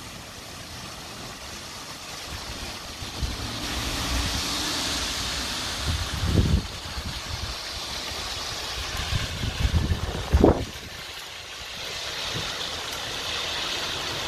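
Heavy rain pouring steadily during a thunderstorm, growing heavier about four seconds in. Two short low rumbles stand out, about six and ten seconds in.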